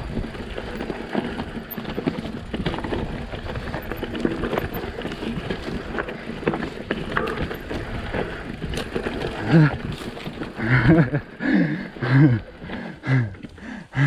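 Mountain bike rolling down a rocky trail: tyres crunching over volcanic rock and pine needles, with rattling and knocks from the bike and wind on the microphone. About ten seconds in, the riding noise eases and a voice is heard.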